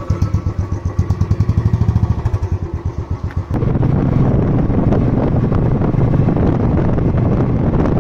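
Royal Enfield single-cylinder motorcycle engine thumping with an even pulse. About three and a half seconds in it switches abruptly to the steady rush of wind and engine noise from a motorcycle riding along the road.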